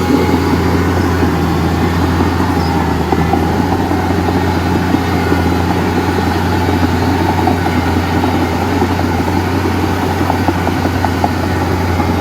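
Heavy diesel engine running steadily at a constant low drone, with a fast irregular rattling clatter over it.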